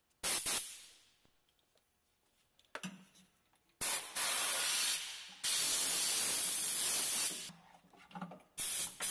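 Compressed-air blow gun blowing out a radiator's fins in bursts of hiss. There is a short burst at the start, then a long one of about three and a half seconds with a brief break in the middle, and another burst near the end.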